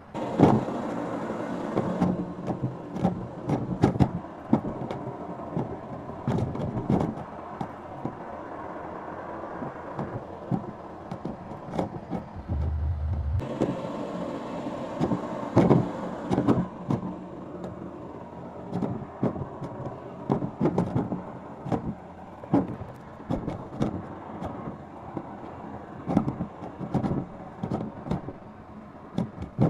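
Vacuum cleaner running, its motor noise cutting in suddenly and accompanied by frequent knocks and clatter; the uploader likens its noise to a helicopter.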